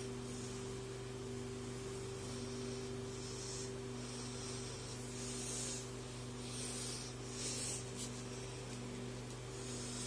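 Steady low electrical hum with a faint hiss over it, from a running desktop PC.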